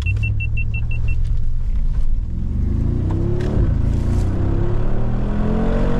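Mercedes-AMG G63's twin-turbo V8 accelerating hard: its pitch climbs, drops at a gear change about three and a half seconds in, then climbs again. Near the start, a quick run of seven short high beeps.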